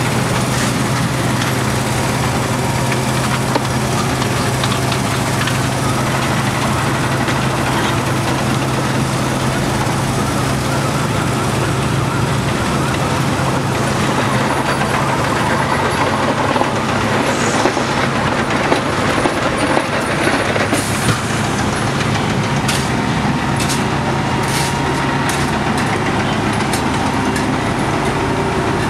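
Wirtgen W120F cold planer running steadily while milling off old asphalt: a constant deep engine hum under a broad noise. A few sharp clanks in the second half.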